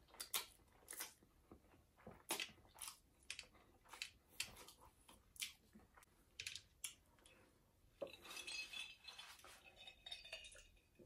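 Close-up eating sounds: short wet smacks and clicks of someone chewing noodles, with utensils clinking against a glass bowl, then a denser run of sipping and swallowing from a glass near the end.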